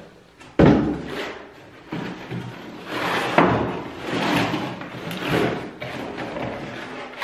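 Cardboard box and its packing inserts handled while a tool is unpacked: a sharp thump about half a second in, then irregular rustling and scraping of cardboard, with another knock about three seconds in.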